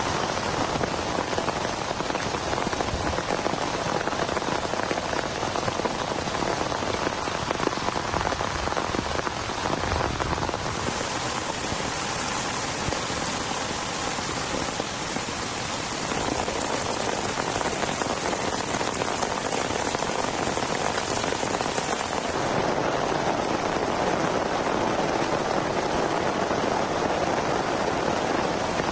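Heavy rain falling steadily, a dense even hiss whose tone shifts a few times.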